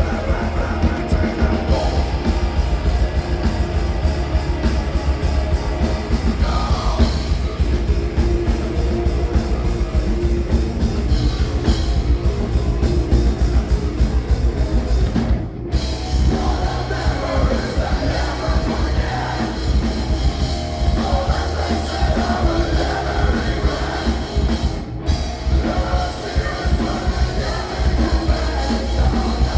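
Heavy rock band playing live: electric guitars, bass and drum kit, with a singer's vocals.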